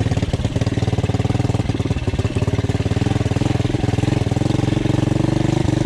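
Small single-cylinder pit bike engine running steadily as the bike is ridden at an even pace.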